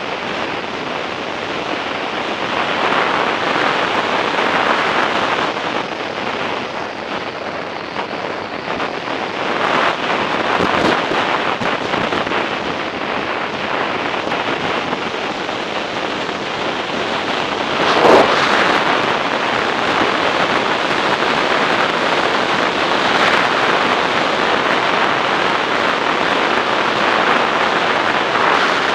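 Wind rushing over the microphone of a camera on a moving motorcycle, a steady noisy rush with the bike's road noise under it, swelling and easing, with one brief louder gust about two-thirds of the way through.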